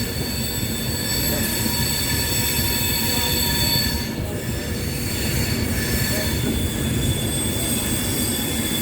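Avanti West Coast passenger train running past along the platform: a steady rumble of wheels on rail with several high, steady whines over it.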